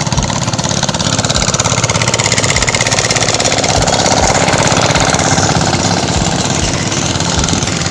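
Hand tractor engine running steadily with a fast, even beat while it works the rice paddy.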